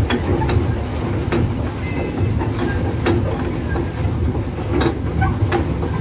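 Pedal-powered swan boat under way: irregular clacks from its pedal drive, about one or two a second, over a steady low rumble.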